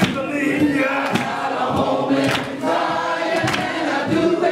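Church congregation singing a gospel song together, men's and women's voices, with sharp percussive hits about once a second.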